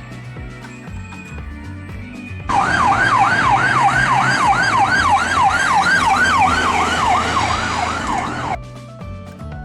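Electronic siren wailing in fast rising-and-falling sweeps, about two and a half a second, starting about two and a half seconds in and cutting off suddenly near the end, over light background music.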